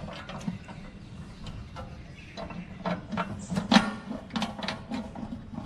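Irregular metallic clicks and knocks as hands work inside a steel motorcycle top box, fitting it to its mount, with one louder knock a little before four seconds in.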